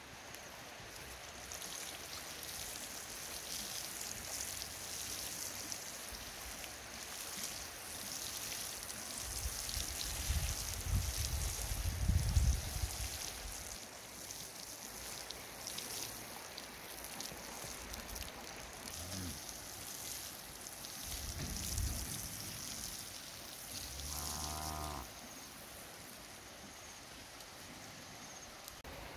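Water from a plastic watering can's rose spraying onto loose soil in a steady hiss, with a low rumble around the middle. A cow moos once, about a second long, near the end.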